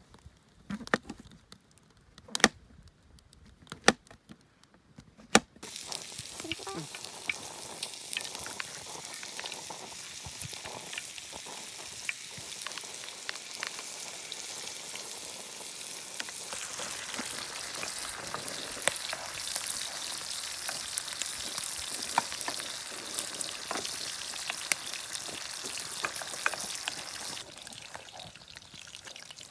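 Food frying in a pan: a few sharp clicks, then a sudden steady sizzle about five seconds in that carries on until it dies down near the end.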